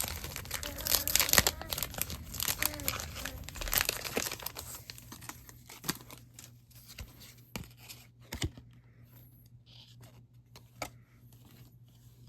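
A crinkly wrapper being torn open and crumpled by hand, loudest in the first four seconds. After that it gives way to quieter handling with a few scattered clicks.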